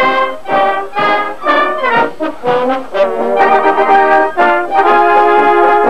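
Brass and woodwind marching band, with flutes, clarinets and brass, playing a march. It plays short detached notes about twice a second, then from about halfway holds long notes.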